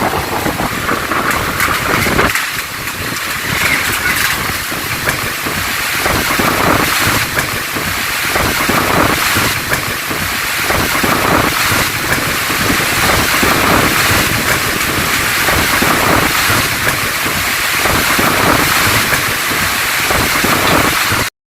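Heavy tropical-storm rain pouring down with strong gusting wind, the wind buffeting the microphone in surges. The sound cuts off abruptly near the end.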